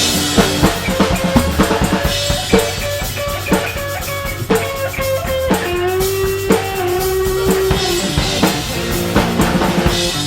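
A rock band playing, with a drum kit's bass drum and snare keeping a steady beat under a lead melody of held notes.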